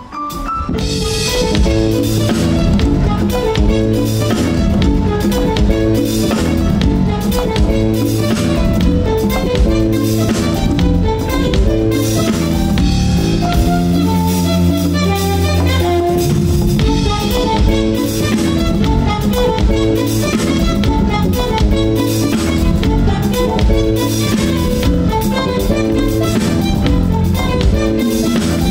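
Jazz band playing instrumental music, with drum kit, bass and keyboards.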